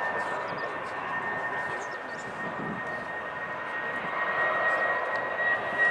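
Airliner engines running: a steady high whine over a rushing noise, growing a little louder toward the end.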